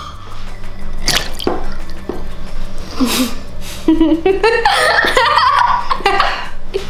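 Water splashing and dripping as small toy animal figures are dipped into and lifted out of a glass mug of ice-cold water, with a few sharp clicks against the glass.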